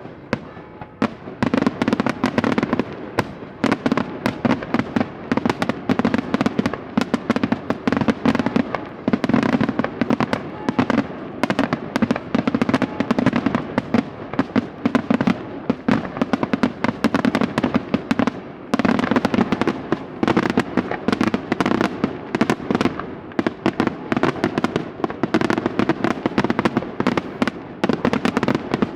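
Daytime fireworks: a dense, continuous barrage of rapid firecracker bangs, with a brief lull about two-thirds of the way through.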